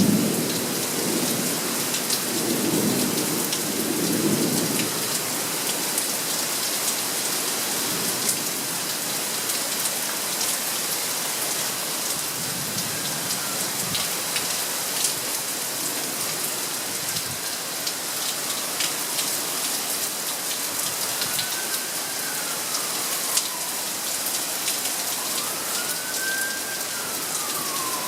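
Steady heavy rain with individual drops pattering, and thunder rumbling in the first few seconds. In the second half a siren wails up and down, growing clearer toward the end.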